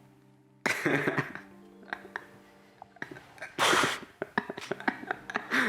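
Music with steady held chords sets in about half a second in. A short, loud, breathy burst of noise cuts across it about three and a half seconds in.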